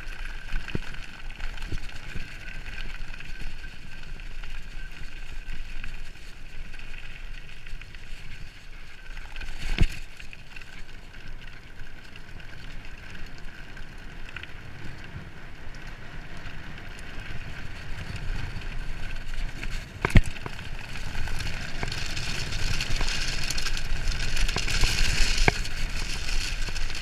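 Mountain bike rolling fast downhill on a gravel forest track: tyre noise over the loose surface and wind on the camera microphone, with the bike rattling. There are sharp knocks from bumps about ten and twenty seconds in, and the noise grows louder toward the end as the speed picks up.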